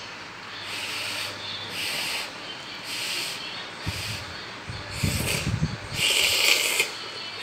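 Noodles being slurped: a series of short airy sucking hisses about a second apart, the longest and loudest near the end.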